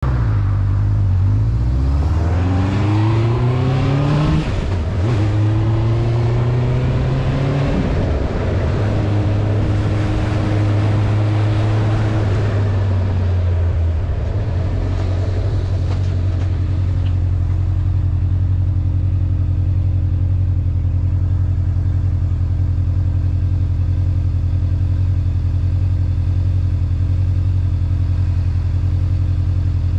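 Motorcycle engine pulling uphill: its pitch rises, drops sharply at a gear change about four seconds in, rises again and drops at a second shift about eight seconds in. Wind rushes over the mount in the first half. Then the engine settles to a steady, even pitch.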